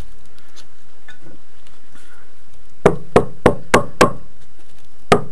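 Sharp knocks of a freshly laid aerated-concrete block being tapped into place on its glue bed: five in quick succession, about three a second, starting about three seconds in, then one more near the end.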